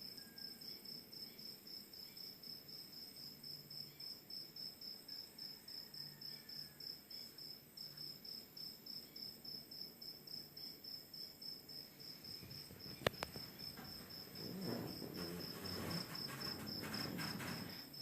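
Crickets chirping in a steady pulsing trill, about three to four chirps a second, over a low steady wash of ocean surf. A sharp click comes about thirteen seconds in, then rustling from about fourteen seconds on.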